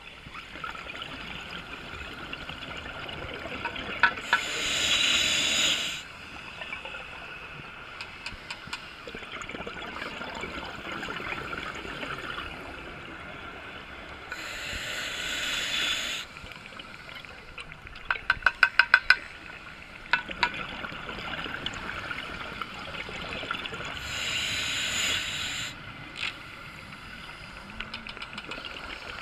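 Scuba diver breathing through a regulator underwater: a steady hiss, broken three times, about ten seconds apart, by a loud rush of exhaled bubbles lasting a second or two. Around the middle comes a quick run of sharp clicks.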